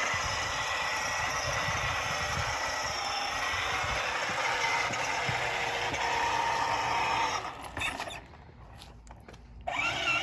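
Child's electric scooter running, a steady rattling whir with a faint whine, which cuts out about seven and a half seconds in.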